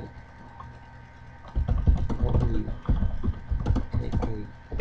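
Typing on a computer keyboard, with irregular key clicks and thumps starting about a second and a half in, and a low voice under them.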